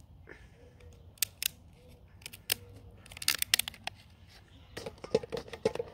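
Hard shell of a steamed lobster claw being cracked and snipped with a hand tool: a run of sharp cracks and clicks, heaviest about three seconds in and again near the end. The claw is tough and resists breaking.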